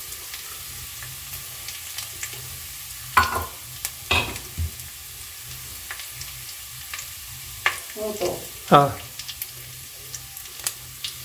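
Sliced shallots and curry leaves sizzling in hot oil in a pot, a steady faint hiss with fine crackles. A few brief, sharper sounds stand out around three to four seconds in and again around eight to nine seconds in.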